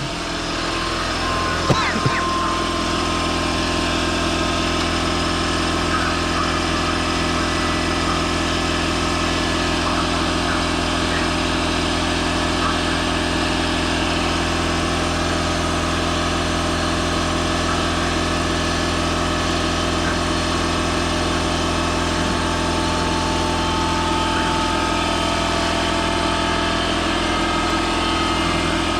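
A steady machine hum runs without change, with a couple of clicks about two seconds in.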